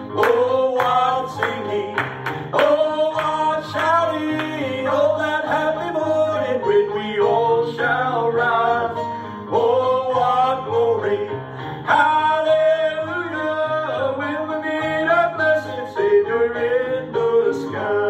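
Country-style gospel song: singing over a plucked guitar accompaniment with regular strummed strokes.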